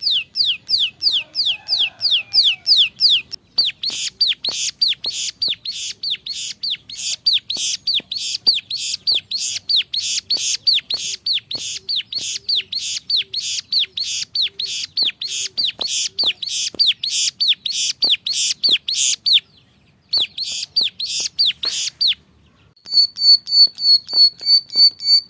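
Ciblek sawah (plain prinia) song: long runs of fast, high repeated notes at about five a second. It starts as falling sweeps, turns about three and a half seconds in to a harsher repeated note, and after two short breaks near the end becomes a quicker series of short, high notes.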